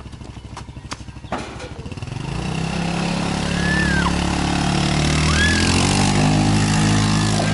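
Small go-kart engine puttering, then getting louder from about two seconds in as the kart accelerates and drives past, running steadily at speed.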